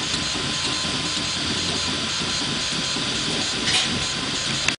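Bukobot 3D printer running: its stepper motors buzz in short, stuttering moves as the print head lays down the last of the print, over the steady hiss of the hotend cooling fan.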